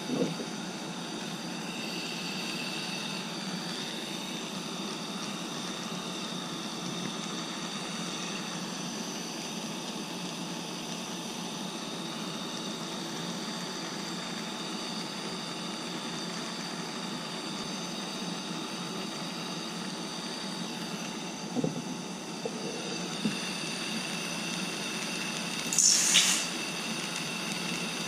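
Small-tipped gas soldering torch burning with a steady, even hiss while heating a silver buckle tip to flow extra easy solder under a backing disc. A brief, louder rush of hiss comes near the end.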